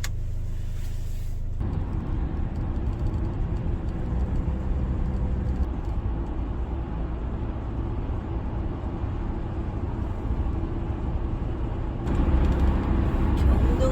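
Hyundai Starex van on the move, heard from inside the cabin: a steady low rumble of engine and road noise, which shifts slightly about a second and a half in and grows louder near the end.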